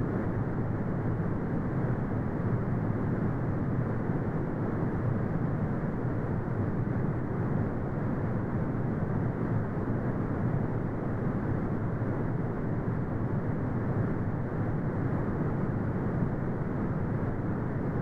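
Brown noise: a steady, deep rumbling hiss weighted toward the low end, with little above the upper midrange and no changes.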